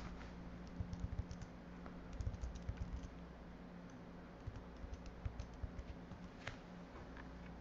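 Typing on a computer keyboard in a few short bursts of keystrokes, over a steady low hum.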